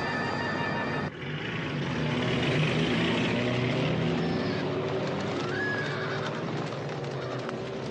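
A held musical chord cuts off about a second in. Then comes the noise of a cavalry charge: many horses galloping over dry ground, with a horse's whinny about six seconds in.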